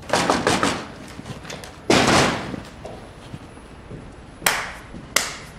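A quick run of knocks on a wooden door with frosted glass panes, then a louder door thud about two seconds in that dies away, and two more thumps near the end as the door is opened and someone comes in.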